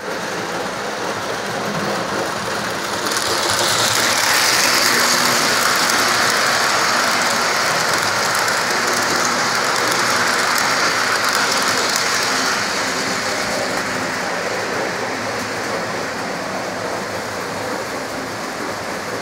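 O-gauge model train running past on its track, a steady rolling rattle of wheels on rails. It grows louder about three seconds in as the cars pass close, then eases off after about thirteen seconds as they move away.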